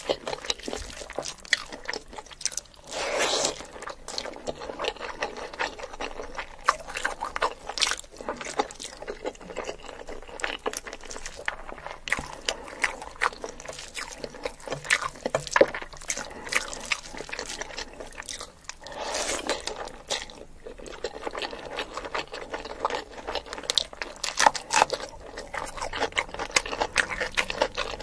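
Close-miked eating of chicken biryani by hand: wet chewing, lip smacks and squelching of rice mixed with gravy, a dense run of small clicks throughout. Two longer, louder wet sounds stand out, a few seconds in and again about two-thirds of the way through.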